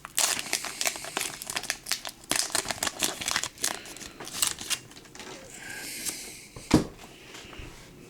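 Foil wrapper of a Pokémon trading card booster pack being torn open and crinkled in the hands, crackling densely for the first few seconds and then settling to a quieter rustle. A single sharp tap comes near the end.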